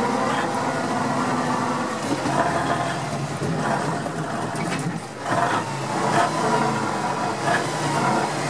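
Tatra 813 truck's air-cooled V12 diesel engine running under load, the note dropping about five seconds in and then picking up again.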